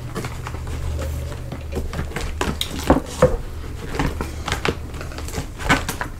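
Knife and fork clicking and scraping against a black plastic takeout tray while food is cut, a string of irregular small clicks and taps. A steady low hum sits under the first half and fades out.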